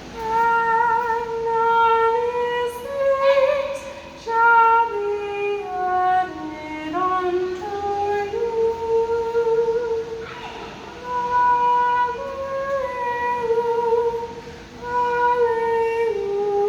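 A single voice humming a slow wordless tune in long held notes with a slight waver, the melody dipping low in the middle and rising again, with short breaths between phrases.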